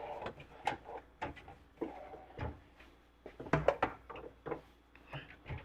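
Scattered light knocks and clicks of tools and wooden parts being handled on a workbench, with a quick cluster of them about three and a half seconds in.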